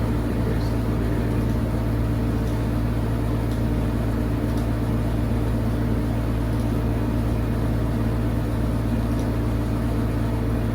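Steady low hum made of several fixed low tones, with a few faint clicks scattered through it.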